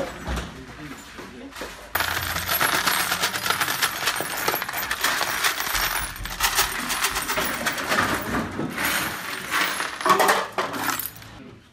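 A pile of loose metal nuts, bolts, screws and small parts being raked and sifted through by hand: a dense, continuous clatter and jingle of small pieces of metal. It starts suddenly about two seconds in and stops near the end.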